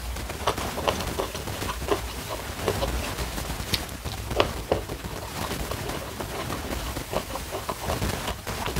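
Close-miked chewing of a mouthful of food eaten by hand, heard as many short, irregular mouth clicks and smacks.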